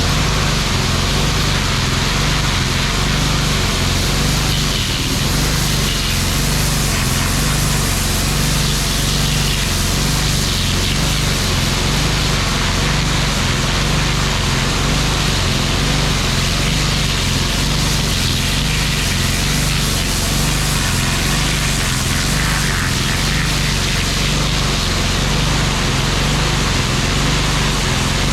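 Gas pressure washer running steadily, its small engine humming under the continuous hiss of the high-pressure water jet spraying onto concrete pavers.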